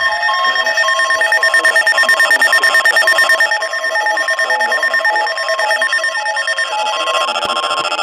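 Several weather alert radios sounding their alarms at once: overlapping steady electronic tones, with a beeping tone that alternates between two pitches. The mix of tones shifts about seven seconds in, as one tone stops and higher ones come in.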